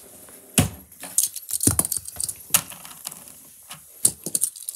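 Plastic light-up fidget spinners being grabbed and picked up off a desk by hand: a string of sharp plastic clacks and rattles, with the loudest knocks about half a second, just under two seconds and four seconds in.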